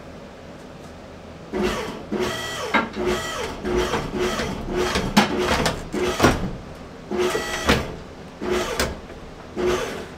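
Car lift's electric motor run in repeated short bursts from about a second and a half in, raising the lift with an engine hanging from it on a chain, with clanks between the bursts.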